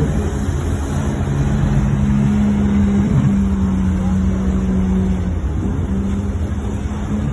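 Engines running with a steady low rumble and a held hum that drops out about five seconds in.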